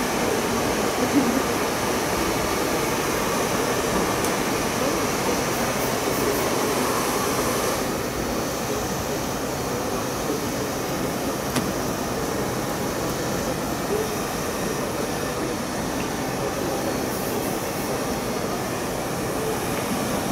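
Steady background noise of a large hall: an even hum with a faint, indistinct murmur of distant voices, slightly quieter about eight seconds in.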